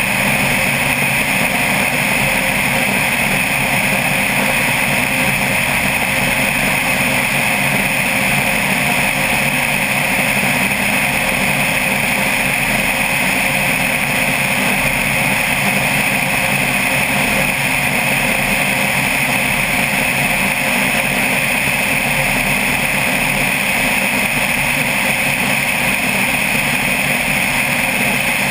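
Single-engine propeller plane's engine and propeller droning steadily in cruise, heard from a camera mounted outside the fuselage beside the cowling.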